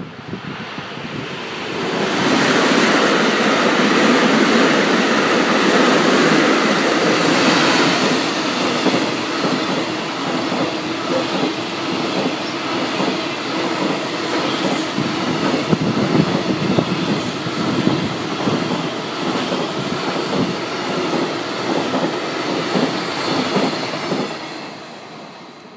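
Container freight train hauled by a JNR EF65 DC electric locomotive passing at speed. The locomotive comes by about two seconds in, then a long string of container wagons goes by with a steady clatter of wheels over rail joints, fading away near the end.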